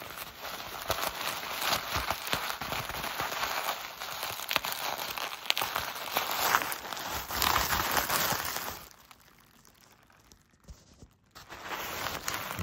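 Plastic bubble wrap crinkling and crackling as hands pull and squeeze it while unwrapping. There are many small clicks, steady for about nine seconds, then a quieter pause, and it starts again near the end.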